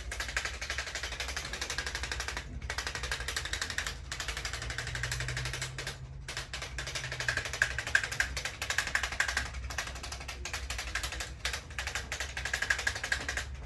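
Chiropractor's handheld electric percussion device tapping very rapidly and evenly, pausing briefly a few times, over a low steady hum.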